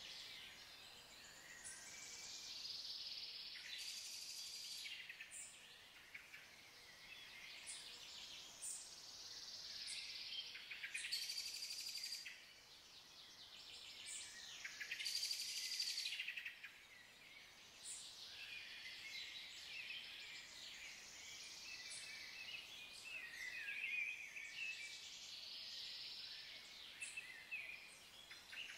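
Several songbirds singing and chirping together, their songs overlapping throughout. Brief louder noisy patches come about 4, 12 and 15 seconds in.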